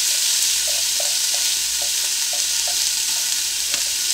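Chopped onion sizzling steadily in hot oil in an Instant Pot's metal inner pot on sauté, with a wooden spoon stirring and scraping through it in short, repeated strokes.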